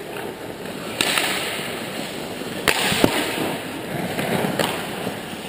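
Ice hockey skates scraping across the rink ice, with several sharp cracks of sticks and puck as play rushes the net. The two loudest cracks come close together around the middle.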